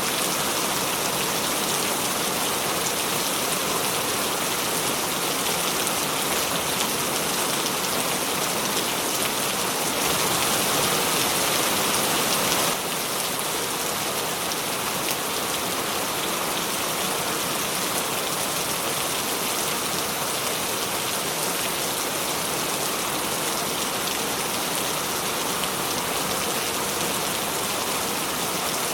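Steady rain falling, a dense even hiss of drops. About ten seconds in it grows a little louder for a couple of seconds, then drops back abruptly.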